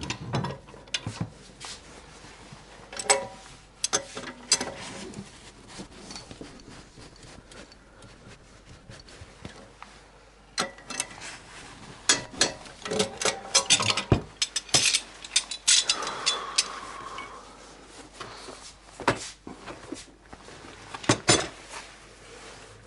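Metal hand tools clinking and knocking: irregular clatter and taps, with a brief hiss about sixteen seconds in.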